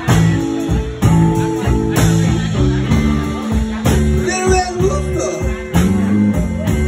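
Live blues: an electric guitar playing over a repeating bass line and a steady beat, with a hit about once a second. About four seconds in, a short wavering melody line rises above it.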